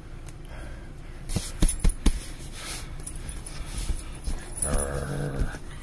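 Small dog growling in rough play with a hand: a short growl near the end, after a few sharp knocks and rustling of handling on the couch about a second and a half in.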